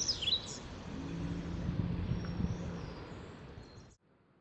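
Outdoor woodland ambience: a few quick, high bird chirps in the first half-second, then a steady background rush with a faint low hum that fades out. The sound drops to near silence near the end.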